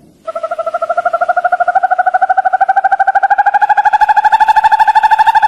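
An animal's long, rapidly pulsed trill on one clear note that slowly rises in pitch, starting abruptly.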